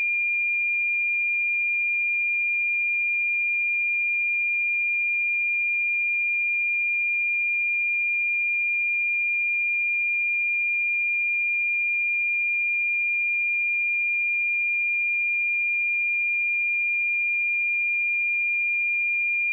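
A pure 2405 Hz sine-wave test tone, one steady high pitch held at a constant level.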